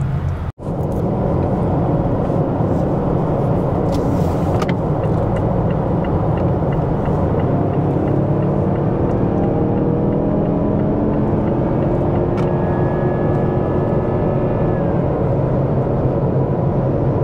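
Cabin sound of a 2020 Mazda CX-9 under way: steady road noise with its 2.5-litre turbocharged four-cylinder pulling, its pitch climbing slowly in the second half. A faint high turbo whine rides on top, from a freshly replaced turbocharger that now makes boost; the mechanic takes the whine for normal.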